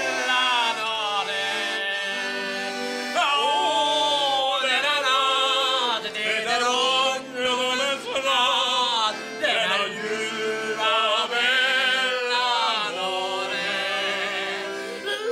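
Two men singing in a mock-operatic style with a wavering vibrato, over a piano accordion that holds steady low bass notes beneath them.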